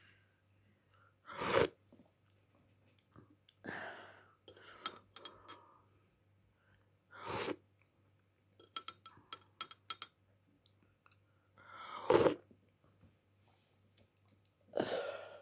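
Throaty coughing from a person with the flu: three single loud coughs several seconds apart. Small clicks and clinks come between them.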